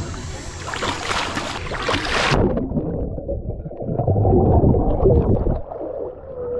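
A person plunging into water with an action camera: splashing for about two seconds, then the sound turns suddenly muffled as the camera goes under. A loud, low bubbling follows as he blows air out underwater, and the sound clears again near the end as the camera breaks the surface.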